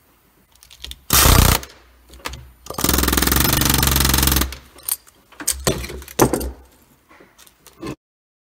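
Pneumatic air hammer chattering against the copper windings of a generator coil, driving the copper slug out. It runs in bursts: a short one about a second in, a longer one of about a second and a half around three seconds in, then several short bursts and knocks.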